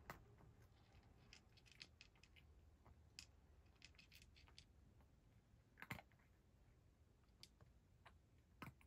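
A cat eating dry kibble from a bowl: faint, irregular crunches and clicks, with a louder crunch about six seconds in and another near the end.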